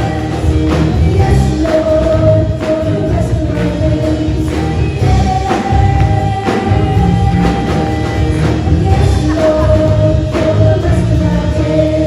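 Live gospel worship music: voices singing long held notes over a band with bass and drum hits.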